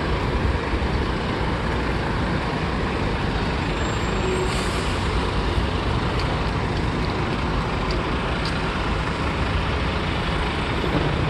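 Steady road traffic noise with heavy trucks: a continuous, even rumble with no distinct events.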